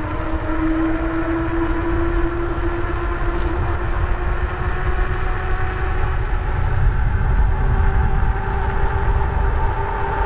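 RadRover 5's geared rear hub motor whining under full pedal assist (level 5), its pitch slowly rising as the bike speeds up from about 19 to 22 mph, over a steady low rumble of wind and tyres on the pavement.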